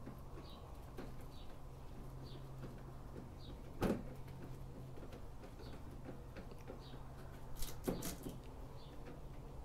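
Knocks and clicks of a batwing-fairing windshield being worked onto its mounting clips: one sharp knock about four seconds in and a short cluster of clicks near the end, over a steady low hum and faint high chirps about once a second.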